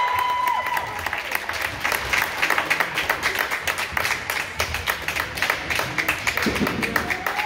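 Hand clapping and applause after a volleyball point is won, echoing in a gymnasium. A held cheering shout fades out about a second in.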